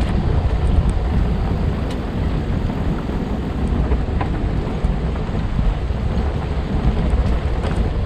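Wind buffeting the microphone of a moving e-bike: a steady low rumble with a few faint clicks.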